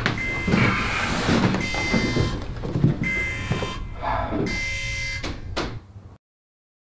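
Sci-fi spaceship sound effects: a short alarm tone beeping about every one and a half seconds over a low rumble, with scattered knocks and clanks. Everything cuts off abruptly to silence about six seconds in.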